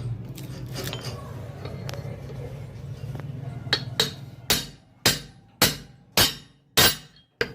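Hammer blows on metal: about seven sharp strikes roughly half a second apart, each ringing briefly, starting about three and a half seconds in after a low steady hum with light clinks of metal tools.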